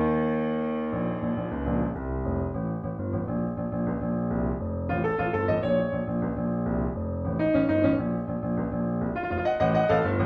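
Background piano music: a held chord for about the first second, then a steady run of shorter notes.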